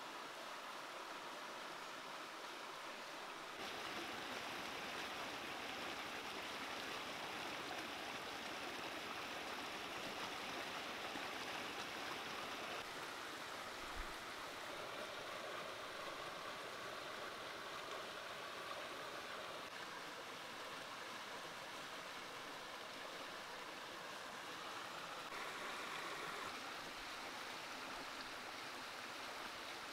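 Steady rushing of a flowing stream, with one brief soft bump about halfway through.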